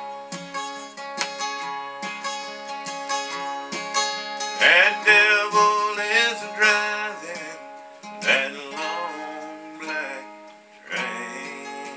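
Acoustic guitar playing a country tune: picked notes over strummed chords, louder for a few seconds in the middle.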